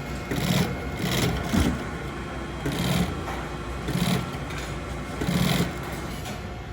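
Industrial sewing machine stitching glove leather in about five short runs, over a steady low factory hum.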